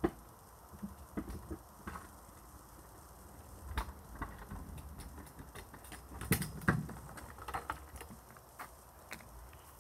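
A child's footsteps and a kick scooter on concrete: irregular light taps and clicks, with two louder knocks about six and a half seconds in.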